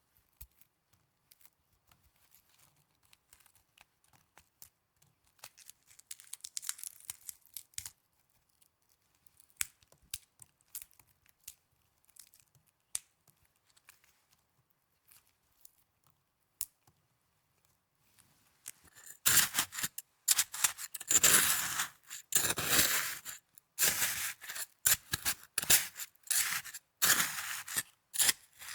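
Snow being handled close to the microphone. For most of the time there are only faint scattered ticks and a soft rustle; about two-thirds of the way in come loud, crisp scraping and crunching strokes in quick, irregular succession.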